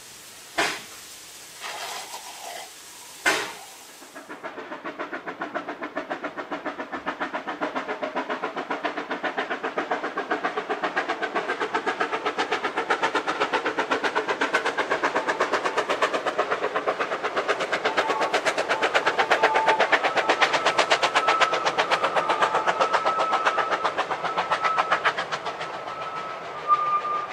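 Vale of Rheidol narrow-gauge 2-6-2 tank steam locomotive working hard with a freight train, its exhaust beating fast and evenly and growing louder as it comes nearer. A few sharp knocks sound in the first seconds, and a thin steady high tone sounds over the beats from about two-thirds of the way through.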